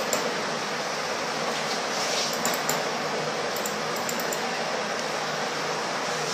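Steady, even hiss like a fan or air conditioning in a small room, with a few faint light clicks about two seconds in and again around four seconds.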